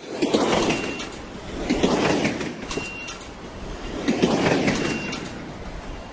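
Train running on rails: rushing wheel and track noise that swells and fades three times, each swell with a brief high squeal, dying away near the end.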